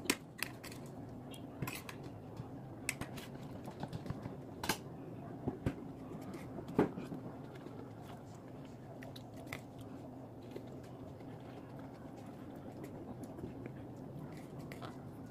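Eating sounds from a person eating rice and cooked greens by hand: scattered small clicks and mouth smacks from chewing, most of them in the first half, over a steady low background noise.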